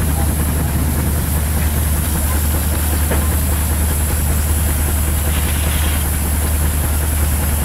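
Fired-up Case steam traction engine standing still, a steady high steam hiss over a constant low rumble.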